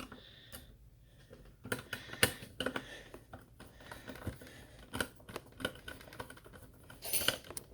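Irregular small clicks, taps and light rattles of hands working on the opened Akai MPC Live II during an SSD install: screws, the drive and its metal cover plate being handled. The sharpest knock comes a little over two seconds in, and a quick cluster of clicks comes near the end.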